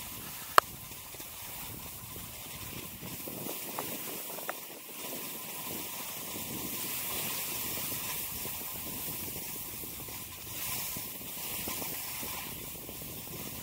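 Skis sliding over packed snow: a steady hiss that swells and fades, with a sharp click about half a second in.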